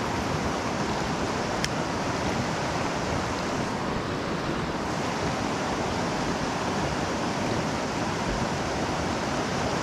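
Fast river current rushing steadily over a cobble bed, an even, unbroken wash of water noise.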